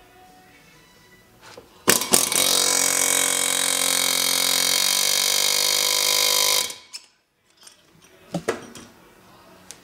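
Pneumatic air hammer with a long valve-guide driver running in a rapid rattle for about five seconds, driving a valve guide in a cast-iron Pontiac cylinder head. Its tone changes about halfway, and it cuts off suddenly. Two light metal knocks follow.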